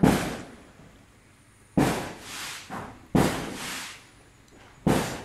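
Firecrackers going off: four sharp bangs about a second and a half apart, each dying away over about a second.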